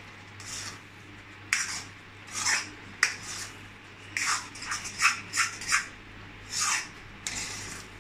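Metal spatula scraping and stirring thick semolina pudding in a metal kadai as it cooks in ghee, in irregular strokes about one or two a second, some starting with a sharp clink against the pan.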